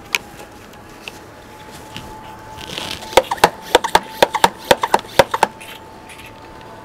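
Yellow plastic hand pressure sprayer being worked: a short hiss, then a quick run of about a dozen sharp plastic clicks, roughly five a second.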